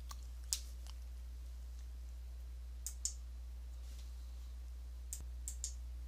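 Faint, sparse clicks from a computer's mouse and keys being worked, about eight in three small groups, some in quick pairs, over a steady low hum.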